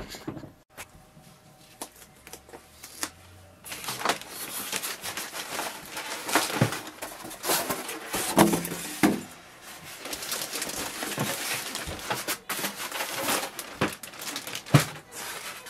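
Plastic wrap crinkling and polystyrene foam packing rubbing and knocking as packing is handled and pulled off a new printer, an irregular run of rustles and sharp clicks that starts about four seconds in.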